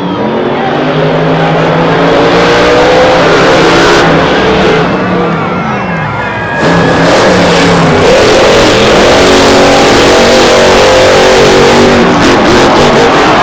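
Monster truck engines, rated at about 1,500 horsepower, revving hard under full throttle, their pitch climbing and falling as the trucks accelerate and lift off. The sound dips briefly about six seconds in and then surges back. A few sharp cracks come near the end.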